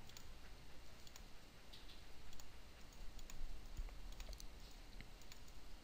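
Faint computer mouse clicks, single and in quick pairs, about once a second.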